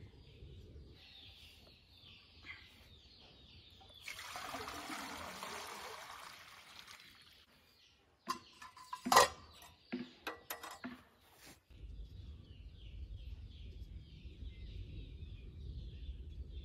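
Birds chirping, then water poured for a few seconds, likely into a samovar. Several sharp metal clinks follow as the samovar's lid and top piece are fitted, the loudest about nine seconds in. Birds chirp again over a low rumble.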